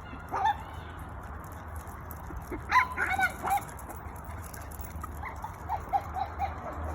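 Small dogs at play, a Miniature Pinscher and a King Charles spaniel, giving short high yips and whines. There is one call about half a second in, a louder burst around three seconds in, and then a quick run of short calls near the end.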